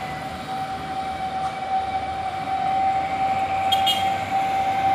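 Heavy truck straining up a steep grade in low gear, with a steady high howl from its drivetrain that grows louder as it approaches.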